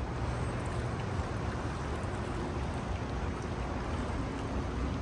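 Steady outdoor noise: a low rumble with an even hiss over it, from wind and moving river water below the dam, with no distinct event.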